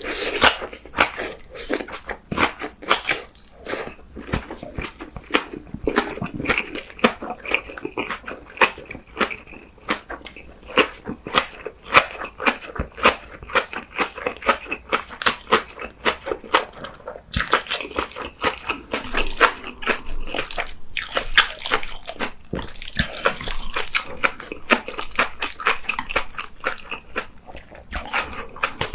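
Close-miked eating sounds: rapid, wet chewing clicks and crunching as Korean black bean noodles (jjajangmyeon) and green onion kimchi are chewed.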